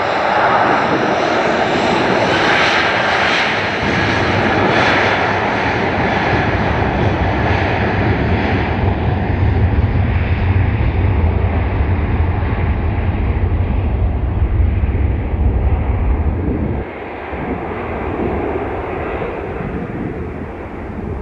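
A loud aircraft passes with its engines running. The noise slowly loses its hiss, a deep rumble builds, and about 17 seconds in the rumble drops away sharply and the sound falls quieter.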